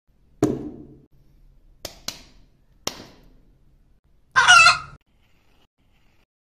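Four sharp hits, the first with a short dull tail, then a single short, loud chicken squawk about four and a half seconds in.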